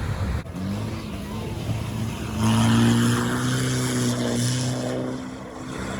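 Off-road 4x4's engine running under load, with a short rise in pitch about half a second in and a louder surge between two and a half and three and a half seconds in.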